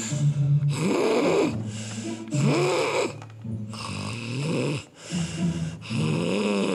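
A child's voice imitating loud snoring for a sleeping toy character: about five drawn-out snores, each rising and falling in pitch, spaced a second or so apart.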